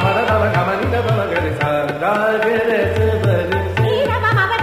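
Indian classical instrumental music: tabla keeping a steady rhythm of low, resonant bass strokes under a melodic line that slides between notes.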